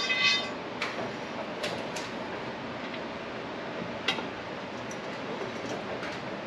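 A metal roof-rack load bar being handled and set into the rack's mounting slots: a short metallic ring at the start, then a few light clicks and knocks of metal on metal, the loudest about four seconds in, over a steady background hiss.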